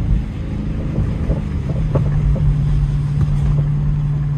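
A car engine running steadily while driving, a constant low drone over road rumble, with a few faint light knocks.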